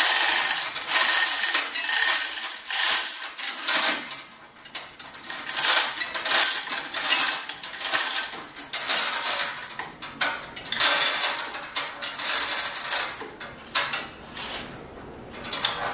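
Hand chain of a manual chain hoist being pulled hand over hand to lift a heavy load, the steel chain rattling and clinking through the hoist in repeated pulls, about one or two a second.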